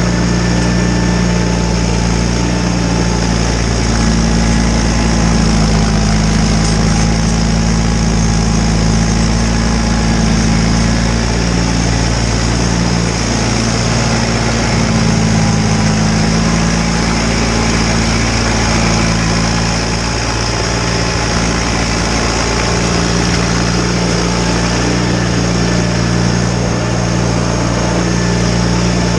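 John Deere 318 garden tractor's two-cylinder Onan engine running steadily at a constant speed, with only small shifts in its note.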